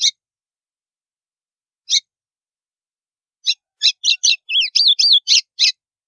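White-throated seedeater (golinha) singing its 'estalo' song. A single sharp note comes at the start and another about two seconds later, then a quick run of clipped notes and slurred whistles that stops abruptly near the end.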